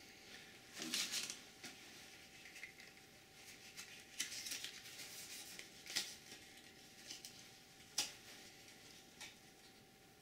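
Faint workbench handling sounds: rustling and light clicks as hands work heat-shrink tubing onto steel chainsaw files and handle a paper matchbook. There are sharper single clicks about six and eight seconds in.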